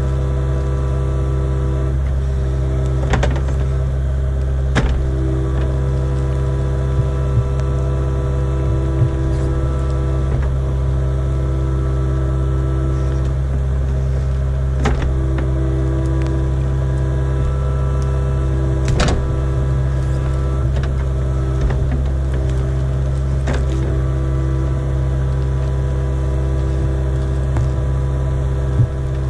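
Kubota KX057-5 mini excavator's diesel engine running steadily, a low drone with a hum of higher tones over it, broken by a few sharp knocks.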